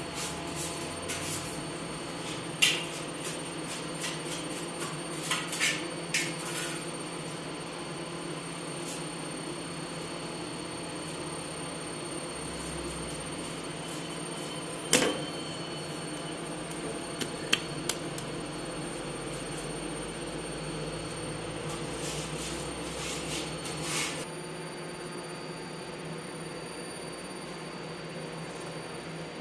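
Steady hum of bakery machinery, with scattered knocks and clatter as dough is handled at a steel mixer bowl; the loudest knocks come about 3 and 15 seconds in.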